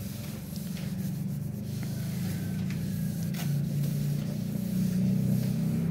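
Damp cloth wiping over a painted car body panel, a few soft rubbing strokes, over a steady low hum of a running machine that is the loudest sound throughout.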